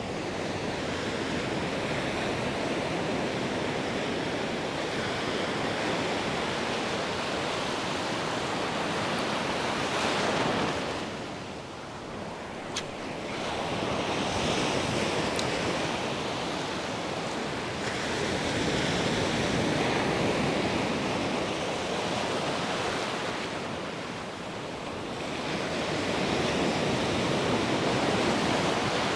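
Ocean surf breaking and washing up a sandy beach, the rush of water rising and falling in slow swells every several seconds.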